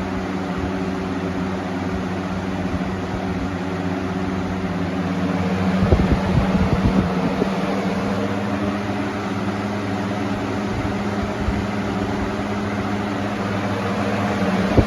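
Galaxy 4733 box fan, running on a swapped-in Weather Shield motor: a steady electric motor hum under the rush of air from the blade. From about six seconds in, low uneven rumbling breaks in, like air buffeting the microphone.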